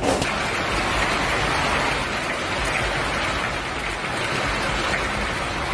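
Hailstorm: hail and heavy rain pelting down, a dense, steady patter of countless impacts.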